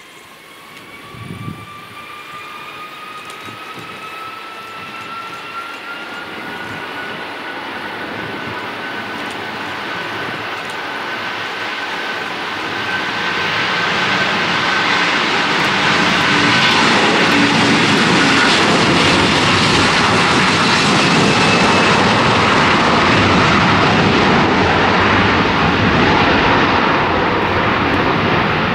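Twin-engine Airbus A330 jet engines spooling up to takeoff thrust: a whine rises in pitch over the first several seconds as the sound grows louder, then a loud, steady jet roar holds as the airliner rolls down the runway.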